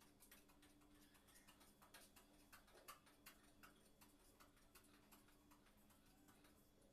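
Near silence: faint, irregular clicks over a low steady hum.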